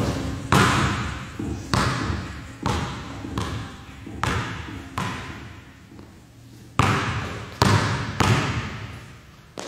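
Basketball bouncing on a gym floor: about ten separate thuds at uneven spacing, each echoing through the large hall.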